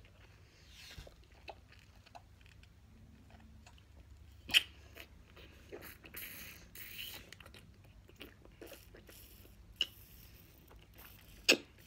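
Chewing a big mouthful of Warheads sour chewy candy cubes: soft, wet mouth noises and small clicks, with three sharper clicks, about four and a half, ten and eleven and a half seconds in.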